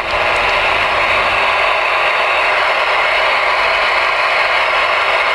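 Steady hiss of open-squelch receiver static from the speaker of a Ranger RCI-2970N2 ten-meter radio.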